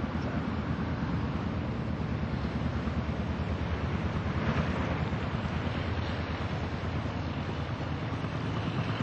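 A canal narrowboat's engine running at a steady low chug as the boat motors along the canal.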